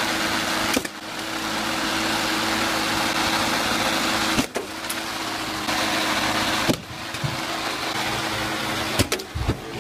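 Gas lawn mower engine running steadily at speed, tipped up with its blade spinning, under a dense hiss as thrown spray paint cans are shredded by the blade. The sound breaks off and starts again abruptly a few times.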